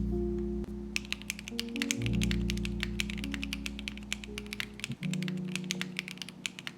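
Fast typing on a foamless mechanical keyboard with factory-lubed Akko Stellar Rose linear switches, made by HMX. Rapid keystrokes begin about a second in, with a clacky, somewhat poppy, low-pitched sound. Background music plays under it.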